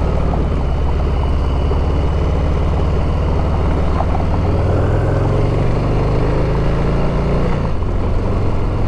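Harley-Davidson V-twin engine pulling under way, its pitch climbing steadily for a few seconds and then dropping suddenly near the end, as at an upshift.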